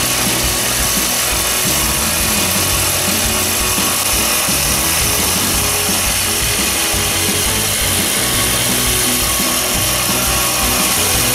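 Small brush-cutter-type petrol engine running steadily at high speed, driving a homemade 4-inch water pump, with the outlet pipe gushing water.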